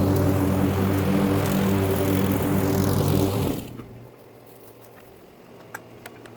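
Gasoline lawn mower engine running steadily while mowing Bermuda grass, then cutting out about three and a half seconds in, leaving a quiet background with a few faint clicks.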